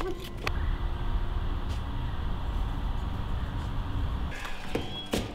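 Steady low outdoor rumble, which cuts off abruptly about four seconds in, followed by a few sharp clicks and knocks near the end.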